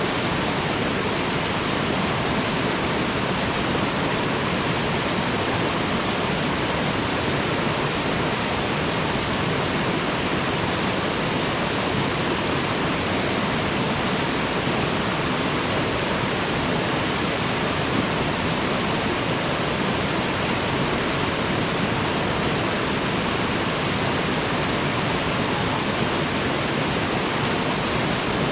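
Waterfall: water falling and splashing in a steady, unbroken rush, full from low rumble to high hiss.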